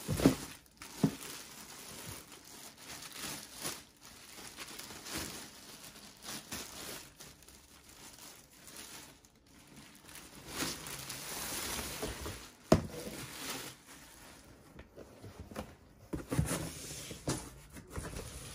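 Thin clear plastic bag crinkling and rustling as hands pull a leather jacket out of it in a cardboard box. A few sharp knocks of handling come near the start and about two-thirds of the way through.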